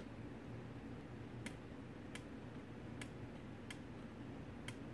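Toshiba RC-803F flip clock's minute flaps clicking over one at a time as its time-setting knob is turned: five sharp clicks, each less than a second apart.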